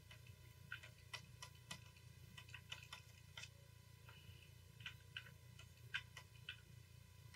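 Near-quiet room with a low steady hum and faint, irregular clicks and taps, one to three a second, from hands working a computer's input devices.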